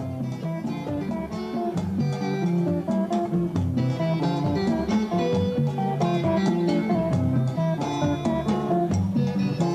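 A Congolese rumba band playing an instrumental passage led by plucked guitars over a steady beat.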